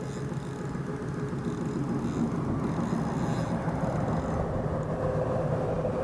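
Steady low rumble of road traffic, with a faint engine hum, building slowly over the first couple of seconds and then holding.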